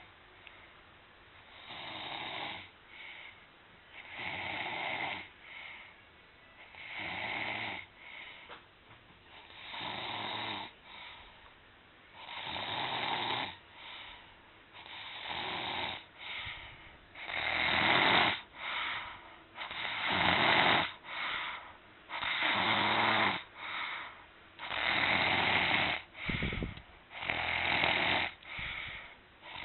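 A sleeping person snoring: a snore about every two and a half to three seconds, each followed by a shorter, softer breath. The snores grow louder through the first half and then stay loud.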